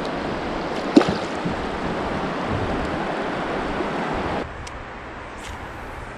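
Shallow river current rushing over a rocky riffle, a steady wash of water noise, with one sharp hit about a second in. About four seconds in the water noise drops suddenly to a quieter, lower flow.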